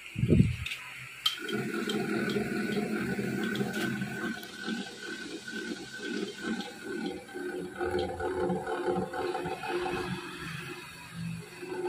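A thump, then a click about a second in as a cylinder boring machine starts and runs steadily, its boring bar cutting out a motorcycle cylinder bore.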